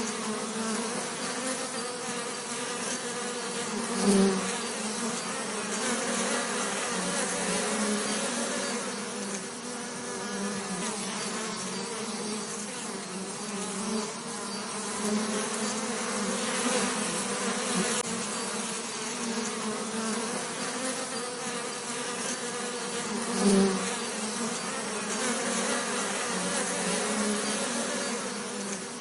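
Bees buzzing in a steady drone, swelling briefly louder twice: about four seconds in and again near the end.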